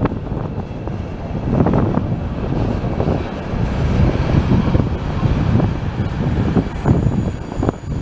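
Freight train of sliding-wall covered wagons and tank-container wagons rolling past close by: a steady rumble and uneven clatter of steel wheels on the rails. Faint high-pitched squealing tones creep in near the end.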